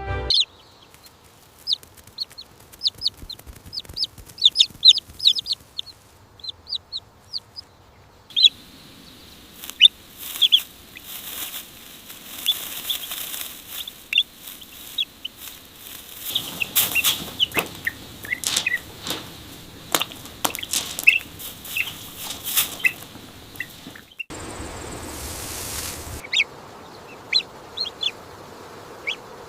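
Baby chicks peeping: many short, high cheeps, each falling in pitch, going on throughout. Through the middle stretch they come with bursts of rustling and scratching noise.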